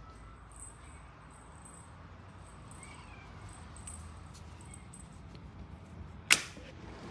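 Quiet room tone broken by a single sharp, loud click about six seconds in.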